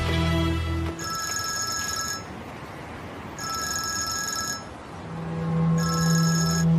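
Smartphone ringtone: three electronic rings, each about a second long and a little over two seconds apart, over background music that swells near the end.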